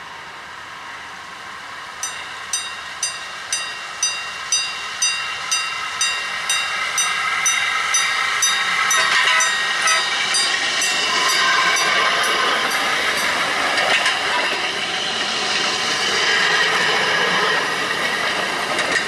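Railroad grade-crossing bell that starts about two seconds in and rings about twice a second, signalling an approaching rail speeder. From about halfway the speeder's running noise on the rails grows louder and covers the bell.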